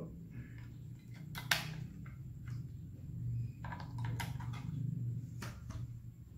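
Sharp plastic clicks and taps at irregular intervals as AAA batteries are fitted into the battery compartment of a mini digital scale and its cover is snapped shut, over a low steady hum.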